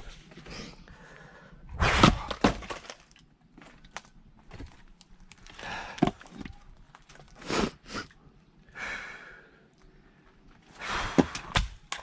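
Firewood being split: about four sharp blows with cracking and splitting of the wood, the first and last sounding as quick double strikes. Heavy breathing comes between the blows.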